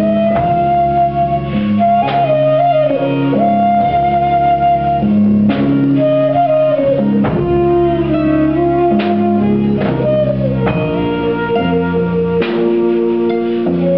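Live band playing a slow Japanese-style tune: a flute carries a sustained melody with sliding pitch bends over guitar, bass and drum kit, with a drum-kit crash about every three to four seconds.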